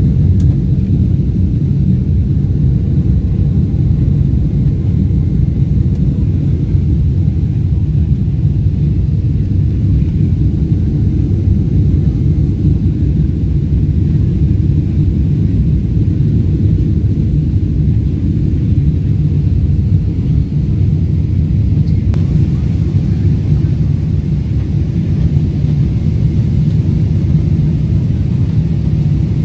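Steady low rumble of a Boeing 777-300's engines and airflow, heard inside the passenger cabin during the climb after takeoff.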